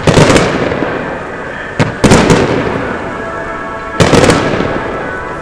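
Fireworks shells bursting in the sky: three loud booms, near the start, about two seconds in (with a small pop just before it) and about four seconds in, each fading away over a second or so.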